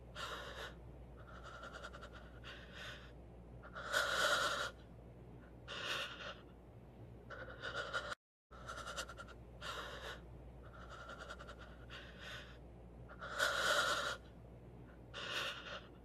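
A person's heavy, strained breathing, held back and then let out in panting breaths and hissing gasps: the sound of someone out of breath trying to keep it quiet. The loudest gasp comes about four seconds in; the sound cuts out briefly just after halfway and the same run of breaths repeats.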